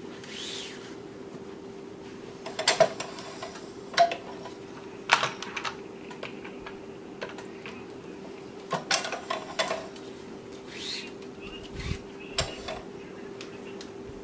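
Clicks and light metallic clinks of a tennis racquet stringing machine's clamps and tools as a racquet is strung, in short clusters a few seconds apart over a steady hum.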